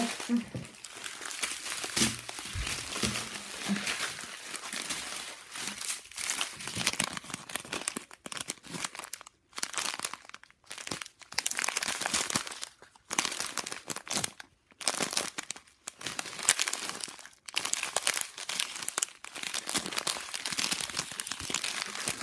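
Small plastic bags of diamond-painting drills crinkling as they are handled and sorted, in a string of separate rustling bursts with short pauses between them.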